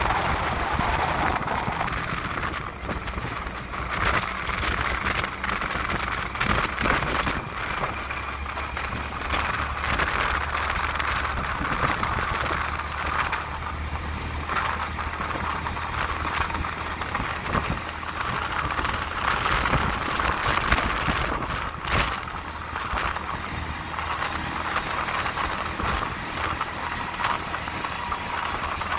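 Riding inside an auto-rickshaw: its small engine drones steadily under loud road and wind noise, with a few sharp rattling knocks from the cab, one plain one about three-quarters of the way through.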